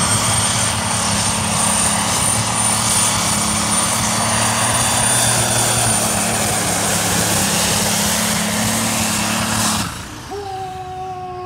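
Super stock pulling tractor's multi-turbocharged diesel engine at full throttle through a pull: a heavy roar with a high, steady turbo whistle. The engine is cut sharply near the end, leaving a whine that slowly falls.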